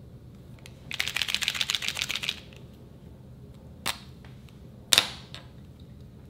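Liquid chalk marker shaken hard for about a second and a half, its mixing ball rattling fast inside the barrel so the paint mixes. Then two sharp plastic clicks from the marker being handled, the second louder.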